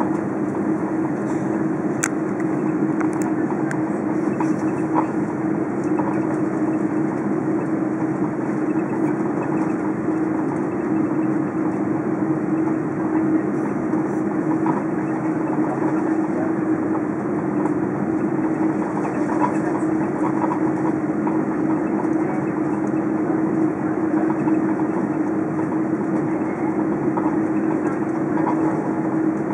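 Steady cabin drone of an Airbus A330 taxiing out, its engines near idle: an even rushing noise over a constant low hum.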